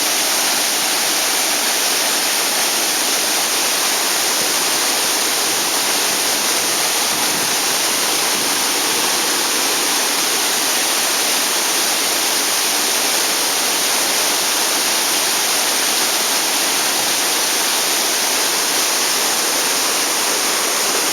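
Waterfall: a loud, steady rush of falling water that never breaks or changes.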